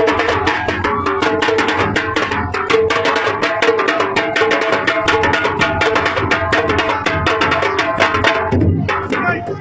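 Hand drums played in a fast, dense rhythm, strokes following each other many times a second without a break.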